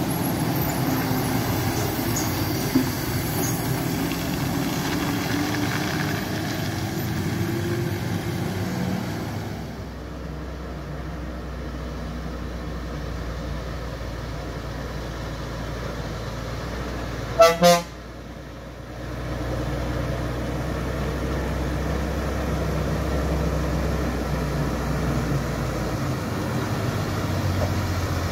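Heavy diesel lorry engines running under load as the trucks climb a hairpin bend, with two short horn blasts about two-thirds of the way through.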